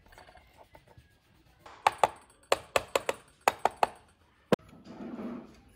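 Metal housing parts of an electric planer's motor clicking and clinking together as the armature and end cap are fitted into the housing. There are about ten sharp clicks over two or three seconds, some in quick pairs, then a short scraping rustle near the end.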